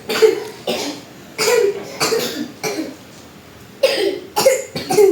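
A child coughing repeatedly: about eight short, dry coughs in quick clusters.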